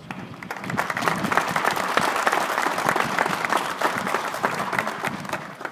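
Audience applauding, picking up about half a second in and dying away near the end.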